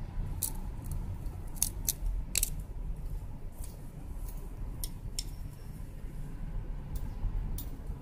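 A dozen or so short, sharp clicks at irregular intervals, most of them in the first half, over a steady low rumble.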